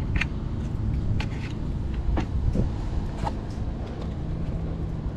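Steady low rumble of background traffic, with a few light clicks of small screws and washers being handled.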